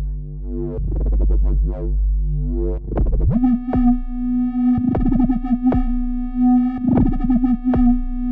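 Instrumental synthesizer music: a held low chord, then about three seconds in a steady drone note with short, sharp hits falling over it at uneven intervals.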